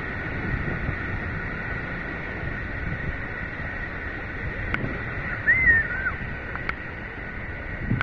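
Steady rush of the Krimml Waterfalls, with wind buffeting the microphone in the spray. About halfway through, a brief chirp rises and falls in pitch and is the loudest sound.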